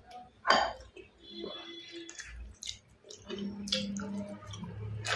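Wet chewing and lip-smacking of someone eating rice with dal, with scattered sharp clicks of the mouth; the loudest smack comes about half a second in.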